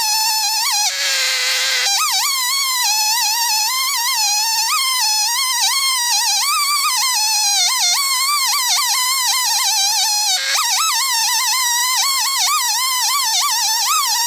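Chainsaw running at full throttle while ripping a maple log in a chainsaw mill, its chain filed with no rakers. The high buzzing pitch wavers constantly as the engine loads in the cut, sagging briefly about a second in and again near ten seconds.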